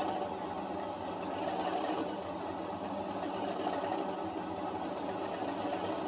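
Sound decoder in an Accurascale model Class 37 diesel locomotive playing the recorded idle of the Class 37's English Electric engine through its small onboard speaker, a steady drone that holds an even pitch.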